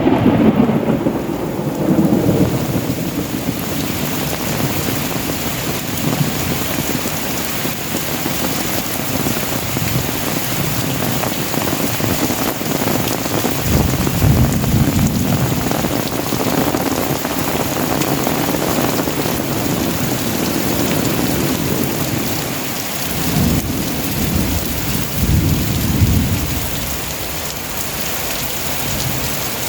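Heavy rain pouring steadily in a thunderstorm, with deep rolls of thunder rumbling several times: at the start, around the middle and again toward the end.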